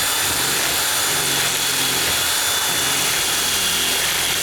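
Electric drill running steadily at high speed, its broken drill bit grinding against the edge of a metal deadbolt strike plate to ream it wider, with a thin steady high whine over the grinding.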